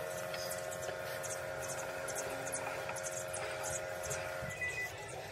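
A steady hum that stops suddenly about four and a half seconds in, with faint high ticks and clinks throughout.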